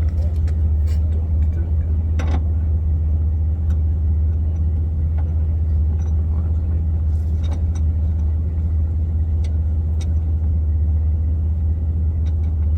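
A steady low hum, with scattered light clicks and taps of metal parts being handled as a new inner tie rod is fitted.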